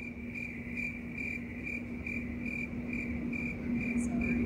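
Cricket chirping in an even rhythm, about two chirps a second, over a steady low hum.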